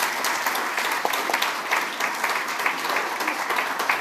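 A roomful of people applauding: dense, steady clapping throughout.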